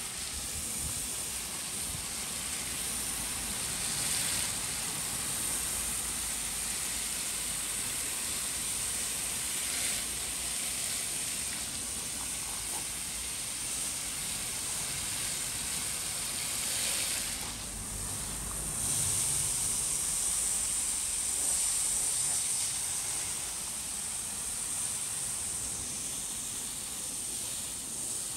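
Water from a garden hose spraying onto the outdoor air-conditioner condenser coil fins, rinsing out clogged dirt and hair. It is a steady hiss that dips and shifts briefly about two-thirds of the way through.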